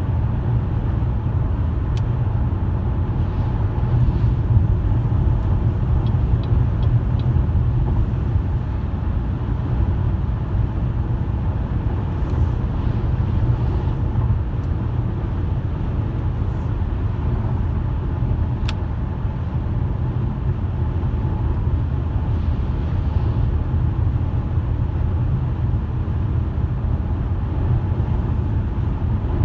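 Car driving at a steady pace: a continuous low rumble of engine and tyres on the road, with a couple of faint ticks.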